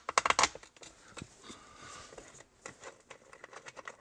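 Light clicks and taps of an Allen key and small screws being worked into a touch-screen swivel mount: a quick cluster of clicks at the start, then scattered ones.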